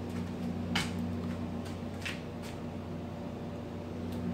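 Steady low hum of a household appliance such as a fan, with a few faint ticks, the clearest just under a second in.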